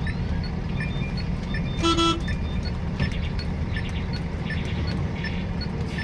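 Steady low engine and road rumble heard from a truck cab, with one short, loud vehicle horn toot about two seconds in and a few fainter, higher toots of other horns after it.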